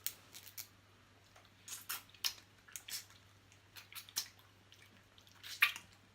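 Close-miked crab eating: a crab claw being cut open and the meat chewed, heard as scattered short clicks, shell crunches and wet squelches, the loudest about five and a half seconds in. A faint steady low hum lies underneath.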